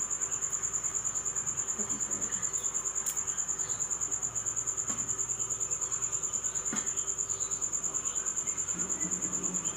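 A cricket chirping: one steady, high-pitched trill pulsing rapidly and evenly throughout.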